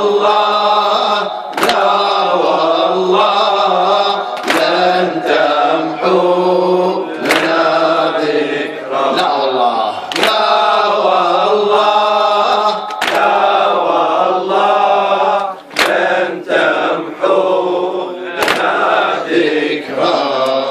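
A man chanting a Muharram latmiya (Arabic lament) into a microphone, with a sharp slap about every three seconds from chest-beating (latm) keeping time with the chant.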